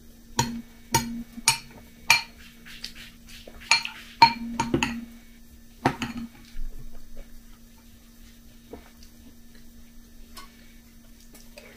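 Metal spoon clinking against a glass bowl of cereal and milk: about eight sharp, ringing taps in the first six seconds as she scoops and stirs, then only faint small sounds.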